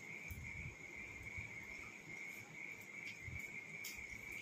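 Faint, steady high-pitched chirring of crickets, with a few soft clicks of fingers working rice on steel plates.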